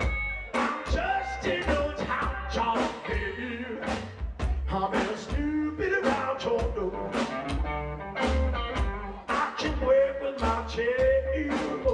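Live rockabilly blues band playing: a male singer over electric guitar, upright double bass and a drum kit keeping a steady beat.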